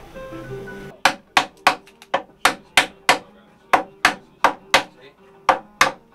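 Hammer blows on the wooden staves of a candombe drum shell being assembled: a steady run of sharp knocks, about three a second, with a short pause around the middle. Faint background music fades out in the first second.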